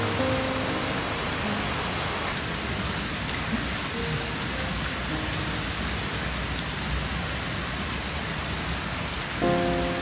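A steady, even hiss like falling rain or running water, with a soft musical chord at the start and another shortly before the end.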